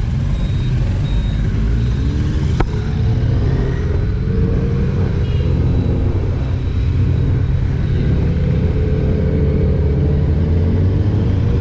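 Royal Enfield Interceptor 650 parallel-twin engine running under way alongside other motorcycles, its pitch slowly rising as it accelerates. A single sharp click about two and a half seconds in.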